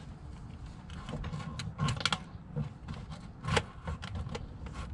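Irregular hard plastic clicks and knocks as a BMW E46 fuel pump hanger assembly is tilted and worked out of the fuel tank opening, its level sender catching. The sharpest knocks come about two seconds and three and a half seconds in.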